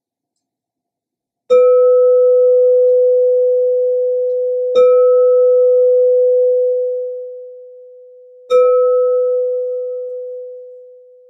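Crystal singing bowl struck three times with a rubber-tipped mallet, about three and a half seconds apart, each strike ringing on as one steady tone. The first strike comes about a second and a half in, and the last ring fades away near the end.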